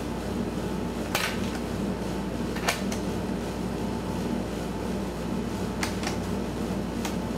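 Steady hum of room air-conditioning, with a few brief clicks and rustles about a second in, near the middle and near the end.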